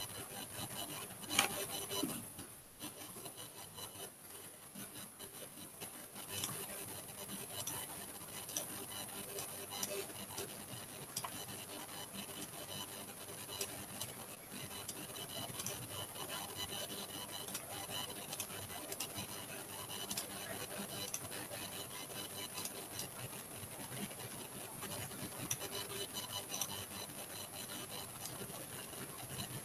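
Faint scratching rub and scattered light clicks from hand-drawing input on a computer, over a steady electrical hiss. There is a single louder click about a second and a half in.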